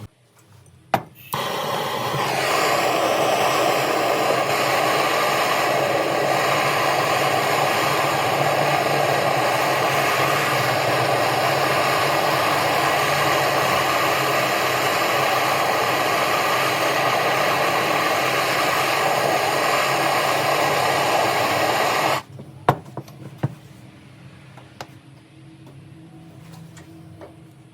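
Electric power tool motor switched on with a click, spinning up over a second or so, then running steadily for about twenty seconds before stopping suddenly. A few light knocks follow.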